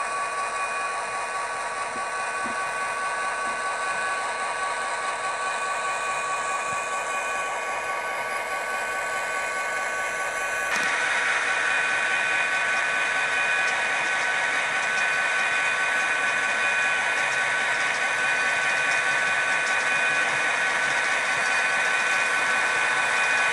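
Class 67 diesel engine sound played by an N gauge model locomotive's DCC sound decoder through its small speaker: a steady engine note with a few high held tones. About ten seconds in it steps up louder and stays there.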